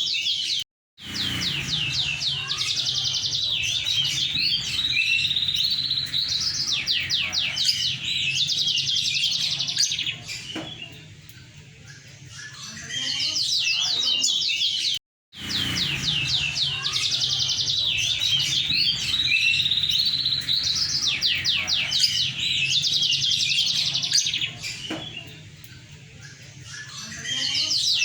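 Moken, a yellow-fronted canary × domestic canary hybrid, singing a long, loud song of rapid trills and warbling phrases, with a quieter stretch in the middle. The song stops dead twice, shortly after the start and about halfway through, and the same passage begins again after the second break.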